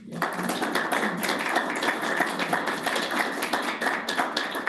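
A small audience applauding, many hands clapping together. It starts abruptly and dies away after about five seconds.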